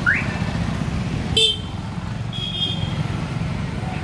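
Street traffic: a steady low engine rumble, with a short vehicle horn toot about a second and a half in and a second, longer toot about a second later. A quick rising chirp sounds right at the start.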